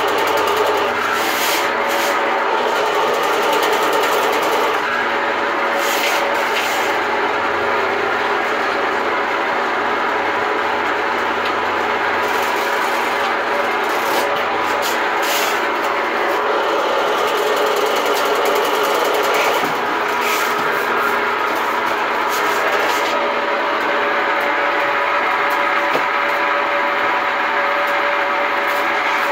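Ridgid K-60 sectional sewer machine's electric motor running steadily, spinning 7/8-inch cable into a clogged drain, with scattered clicks and rattles from the cable. Its tone shifts about five seconds in and again a few seconds from the end as the load changes.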